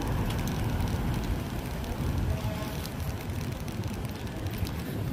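Wind rumbling on the microphone while cycling, over steady city street traffic noise.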